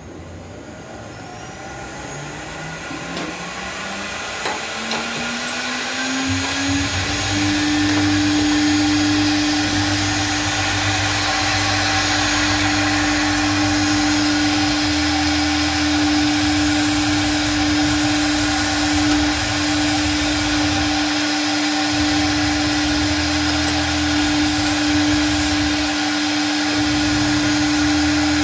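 CNC router spindle spinning up, its whine rising in pitch for about seven seconds and then holding steady. From about six seconds in the bit cuts into the sheet, adding a rough cutting noise beneath the whine.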